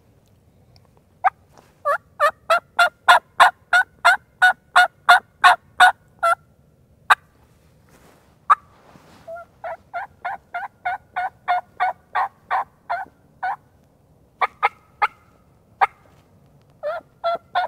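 Hen turkey yelps on a hunter's mouth call: a loud run of about fifteen yelps at roughly three a second, a couple of single notes, then a softer run and a few more yelps. The softer yelps are called away from the listener with hands cupped over the mouth, directional calling that makes the hen sound like she is walking away.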